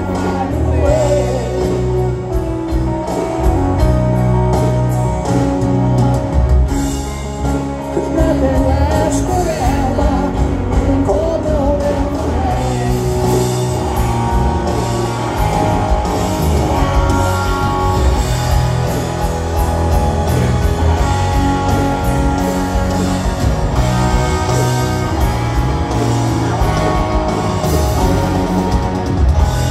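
Live rock band playing a slow piano ballad through a stadium PA: grand piano, drums and bass, a singing voice, and an electric guitar lead with bending notes.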